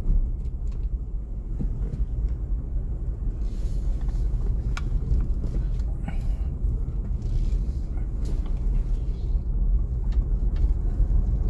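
Steady low road-and-engine rumble of a car driving, heard from inside the cabin.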